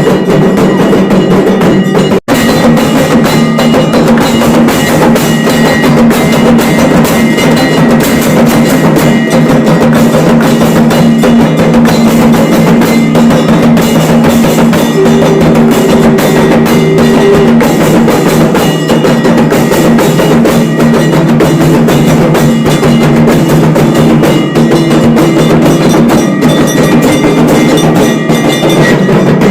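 Music of ringing bells and rapid drumming over a steady low drone, with a brief break about two seconds in.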